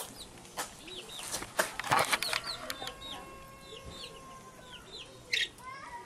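Baby chicks peeping: a string of short, high, falling cheeps, with a few brief rustles among them, the loudest about two seconds in.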